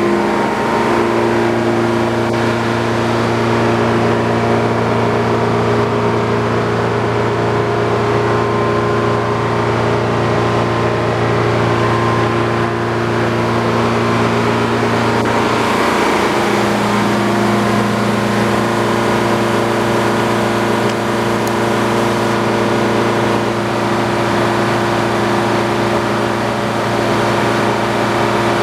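Antique circular sawmill running steadily, its drive and blade giving a constant, even hum, with a brief change in pitch about halfway through.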